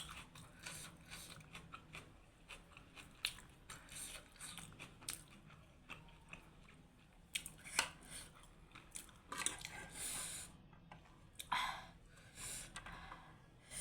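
Close-miked chewing and biting of food in a mukbang, with many short wet mouth clicks and smacks, and a few longer noisy bursts in the last few seconds.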